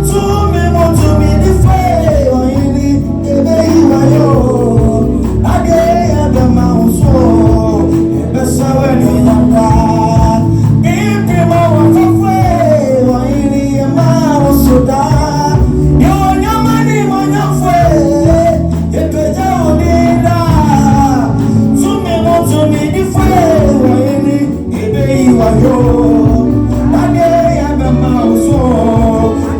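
Music with singing voices over a steady low bass and percussion.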